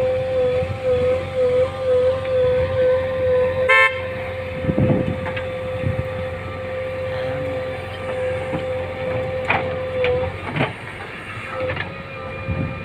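Machinery running with a steady high-pitched whine over a low rumble, the whine wavering in pitch for the first two seconds. A few short knocks come through, and there is a brief rapid pulsing about four seconds in.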